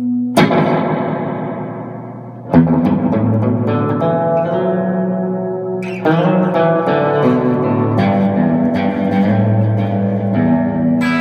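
Electric guitar played through a two-knob spring reverb pedal. A chord struck near the start rings out and fades over about two seconds. Fresh chords and picked notes follow, each ringing on into the next.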